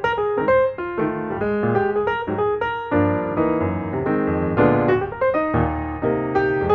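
Background piano music: a melody of quick successive notes over chords.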